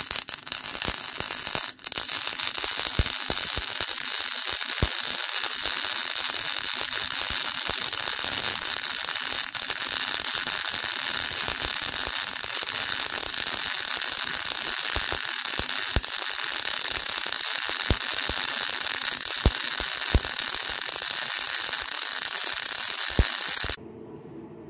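MIG welding arc laying a fillet weld on 6 mm steel plate: a steady crackling hiss with scattered sharp pops and a brief break about two seconds in. The arc cuts off suddenly about a second before the end as the run is finished.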